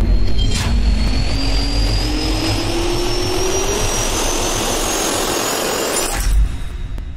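Jet engine spooling up: a rising whine over a steady rush, dying away near the end.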